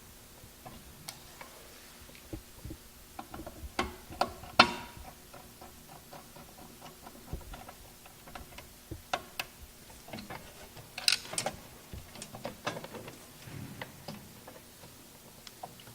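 Irregular small clicks and taps of hands and hand tools working electrical wires into their connections, the sharpest about four and a half seconds in and another cluster about eleven seconds in.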